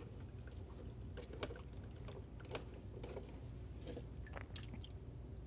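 Wooden spoon scraping and pressing wet corn purée through a fine-mesh sieve set on a blender jar: faint, scattered soft scrapes and light clicks over a low steady hum.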